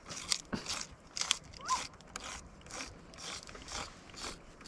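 Manual can opener cutting around the lid of a large steel food can, a rasping crunch about twice a second with each turn of the crank.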